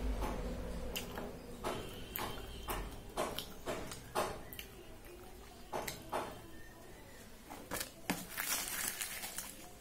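Close-up eating sounds: chewing with irregular wet mouth clicks and smacks, and the soft crackle of fried puri being torn by hand over a steel plate.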